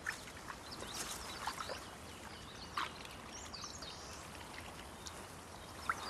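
Faint marsh ambience: a steady soft hiss with a few small ticks and faint high bird chirps about halfway through.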